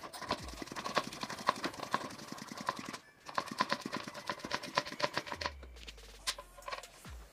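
Road bike rear hub freewheel ticking rapidly as the wheel turns under hand work at the back of the bike. The ticking breaks off briefly about three seconds in, resumes, then thins to scattered clicks near the end.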